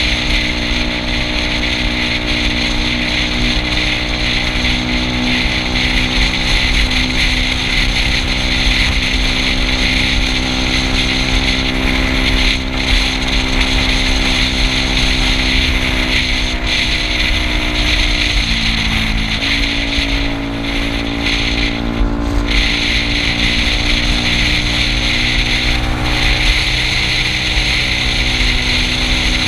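Yamaha Cygnus scooter's single-cylinder engine running steadily at cruising speed under a steady rush of wind. About two-thirds of the way through its pitch drops briefly as the throttle eases, then comes back up.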